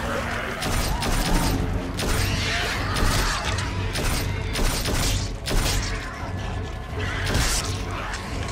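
Action-film fight soundtrack: a dense run of sharp hits and clashes over a steady low rumble, mixed with score music.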